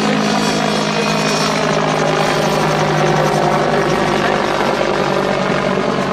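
Westland Whirlwind HAR.10 helicopter flying past, its Gnome turboshaft and main rotor making a loud, steady roar.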